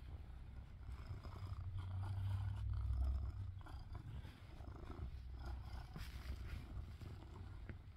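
Kitten purring close up: a low, steady rumble that swells loudest about two to three seconds in.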